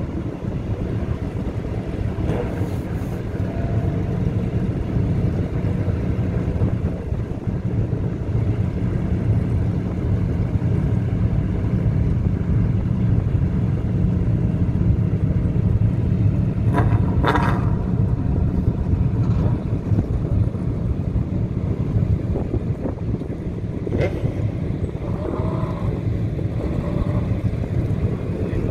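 Several race car engines idling together on the grid, a steady low rumble with wind buffeting the microphone.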